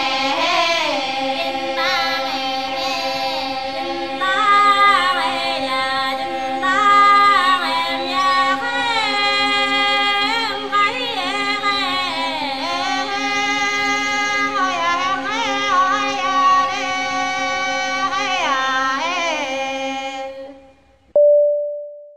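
Music of high female voices singing a melody over a steady held drone, fading out about 20 seconds in, followed by a short electronic tone near the end.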